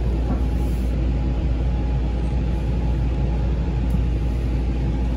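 Long Island Rail Road M9 electric multiple-unit railcar in motion, heard from inside the passenger car: a steady low rumble from the wheels and running gear, with a faint constant hum over it.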